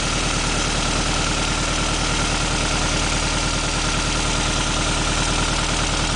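Toyota 3S-GTE turbocharged four-cylinder engine idling steadily, with a steady high whine over the idle.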